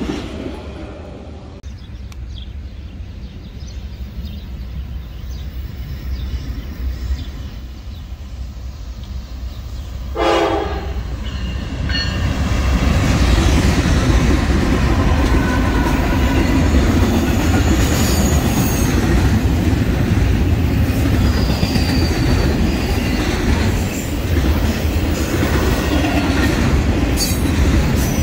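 Freight trains on the line: a receding intermodal train's rumble fades, then a short horn blast about ten seconds in as Norfolk Southern diesel locomotives arrive. Their engines and the double-stack container cars behind them rumble past loudly, with a few brief wheel squeals.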